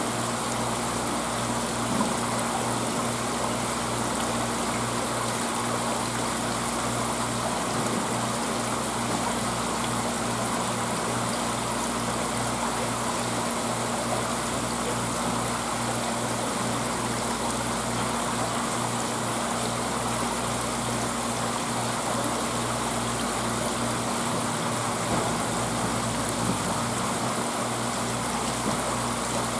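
Steady running water from an aquarium tank's circulation, with a low, even electrical hum from its pump.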